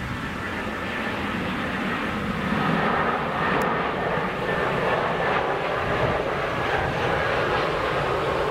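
Airbus A319 jet airliner passing low on its landing flare, its engines making a rushing roar that grows louder about two and a half seconds in and then holds, with a thin whine over the rush.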